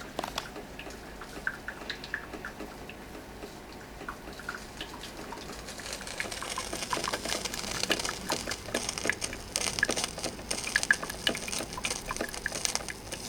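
Drip coffee maker brewing into its pot: a gurgling, sputtering run of small pops and clicks over a hiss, growing louder about halfway through as the machine steams up.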